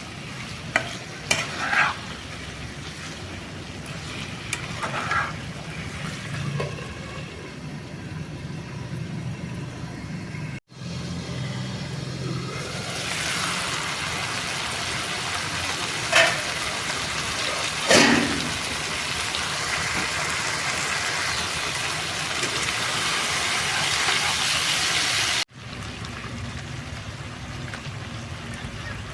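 Chicken frying and sizzling in a pan while it is stirred, with a spatula knocking and scraping against the pan now and then. The sizzle swells louder midway and breaks off abruptly twice.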